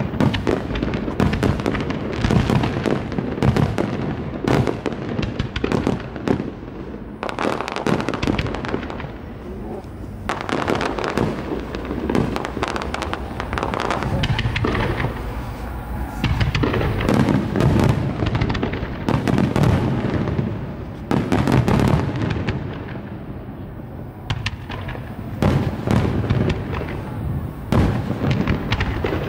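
Aerial fireworks bursting in rapid succession: deep booms overlapping with many sharp reports, with two brief lulls.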